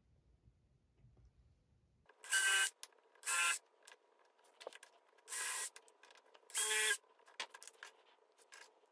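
DeWalt Atomic compact cordless drill run in four short trigger bursts, drilling into a small pine block, each burst a whining motor with the bit cutting wood, followed by a few light clicks as the block is handled.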